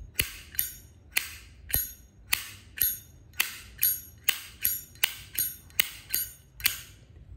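A 1991 Zippo lighter's hinged metal lid being flicked open and snapped shut over and over, a sharp metallic clink each time, in pairs about once a second.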